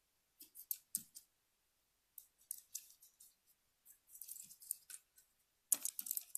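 Scattered faint, sharp clicks and ticks in small clusters, coming thicker and a little louder near the end.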